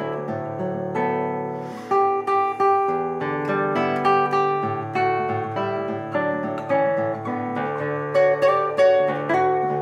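Solo classical nylon-string guitar, fingerpicked: a melody of plucked notes ringing over held bass notes and chords.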